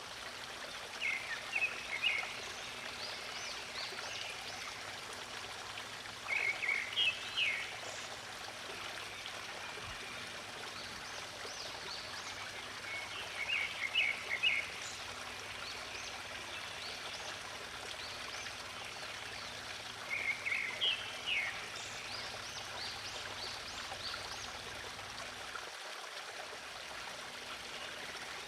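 Running water of a stream, steady throughout. A bird sings short phrases of several quick, high notes four times, about every seven seconds.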